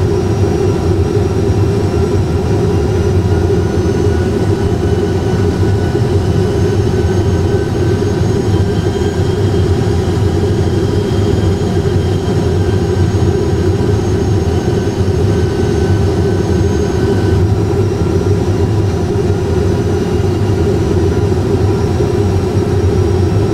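Steady cockpit noise of an Airbus A320 full flight simulator on approach: a loud, even, low engine-and-airflow drone with faint high whining tones over it.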